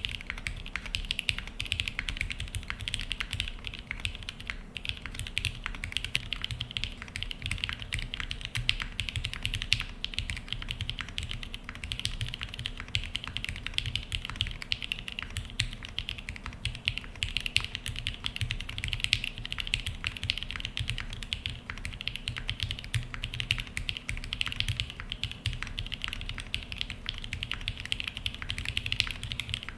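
Steady, fast typing on a Singa Unikorn custom mechanical keyboard with an aluminium half plate, broken-in Cherry MX Black linear switches (lubed, filmed, 51g springs) and GMK keycaps: a continuous stream of key presses with no pauses.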